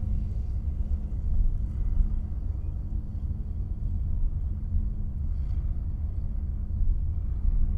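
Car driving, a steady low rumble of engine and road noise with a faint constant hum.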